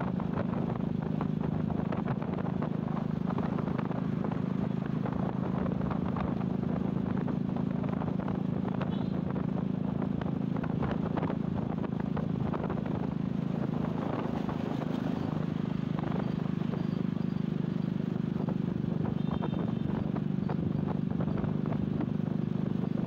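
Motorcycle engine running at a steady cruising speed: a constant low hum with a rushing noise of wind and road over it.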